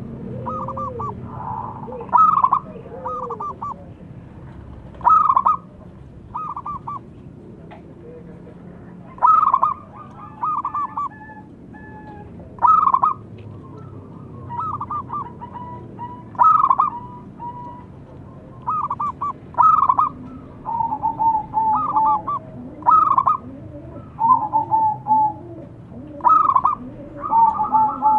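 Zebra doves (perkutut) calling over and over, each call a short run of quick staccato cooing notes, repeated every second or two. Some calls overlap at slightly different pitches, as birds answer one another.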